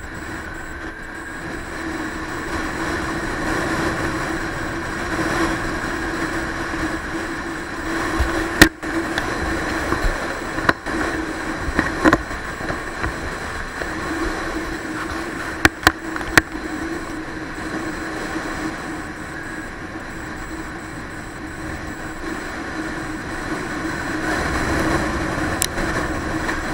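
Motorcycle engine running steadily while riding, with wind rushing over the microphone. A few sharp knocks come about nine seconds in and again near sixteen seconds.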